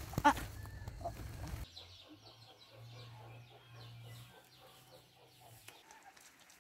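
Chickens clucking, with a low steady hum underneath. Louder for the first couple of seconds, then it drops to a quieter stretch of short repeated calls.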